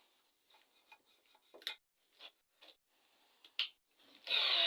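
Light, scattered clicks and taps of metal tools and parts on a VAZ-2103 cylinder head during valve lapping, then a harsh scraping noise about half a second long near the end.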